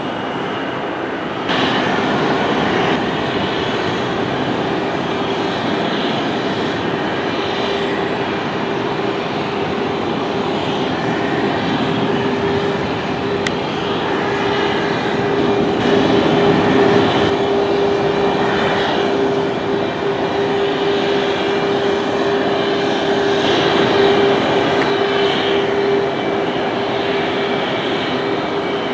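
Jet airliner engines running at an airport: a steady roar with a constant whine, stepping louder about a second and a half in and swelling slightly twice later on.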